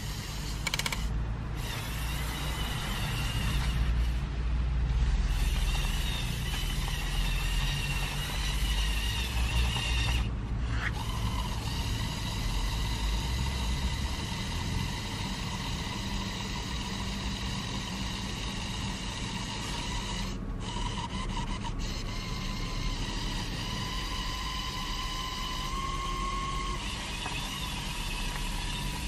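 Electric motors and plastic gears of a remote-controlled Lego Technic Volvo L350F wheel loader whining steadily as it drives and pushes snow, the high whine cutting out briefly a few times. A low rumble lies under it for about the first half.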